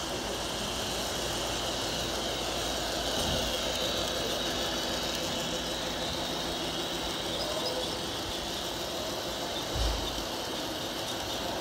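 Model trains running on the layout's tracks: a steady whir and rumble of their motors and wheels, with a soft low thump near the end.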